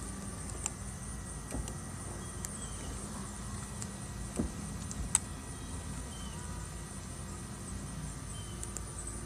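Outdoor ambience: a steady low rumble under a continuous high trilling of insects, with a couple of sharp clicks about halfway through.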